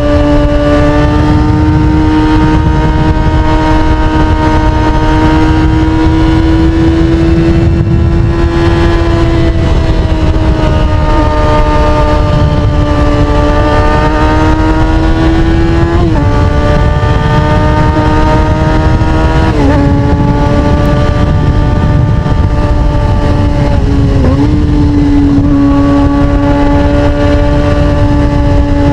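Sportbike engine running at high revs, its pitch rising and falling slowly, with three brief sharp dips in pitch in the second half, over wind noise on the microphone.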